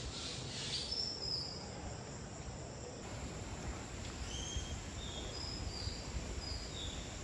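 Mangrove forest ambience: a scattering of short, high chirps at several different pitches from small wild animals, most of them in the second half, over a low steady background noise.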